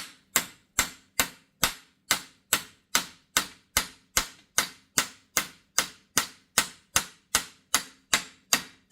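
Hammer tapping a universal-joint bearing cap into the yoke of a Jeep Wrangler front axle shaft, to seat it. The blows come steadily, about two and a half a second, each with a short metallic ring, and stop right at the end.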